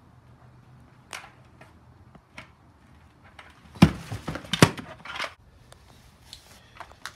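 Scattered clicks and knocks, with two loud thumps close together a little before the middle and a short rustling noise right after.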